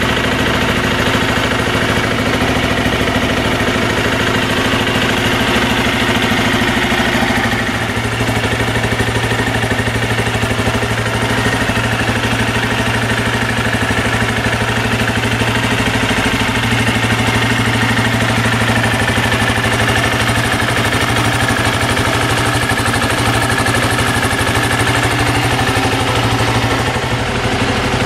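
Benelli Imperiale 400's air-cooled single-cylinder engine idling steadily through its peashooter exhaust.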